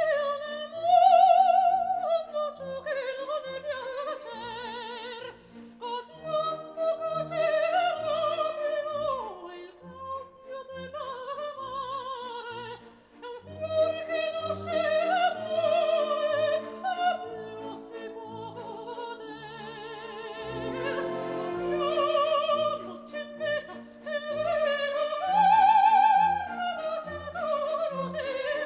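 Operatic solo voice singing with a wide vibrato over orchestral accompaniment.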